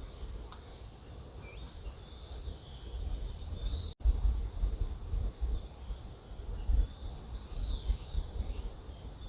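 Brown creeper: a short song of very high, thin notes that slide down and jumble at the end, followed by single high, thin call notes given a second or more apart, over a low rumble of background noise.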